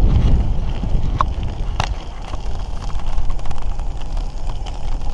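Wind buffeting the GoPro's microphone, mixed with road and tyre rumble from a 2016 Marin Lombard gravel bike rolling along pavement at riding speed. Scattered small clicks and rattles run through it, with one sharper click just under two seconds in.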